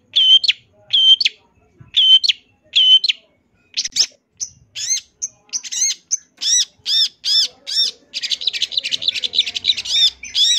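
Long-tailed shrike (cendet) singing a varied song: first a row of repeated clear notes, about two a second. Then come higher arching whistles, and about eight seconds in a fast, dense chattering run.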